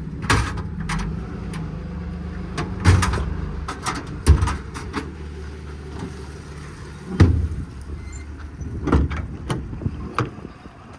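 American Eagle twist-lock tool drawers in a service-truck compartment sliding out and back in, with about six clunks and knocks as they stop and shut. A steady low hum runs underneath.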